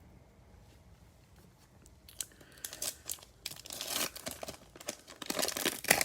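The foil wrapper of a trading card pack being torn open and crinkled. It starts about two seconds in as a run of tearing and crinkling noises, loudest near the end.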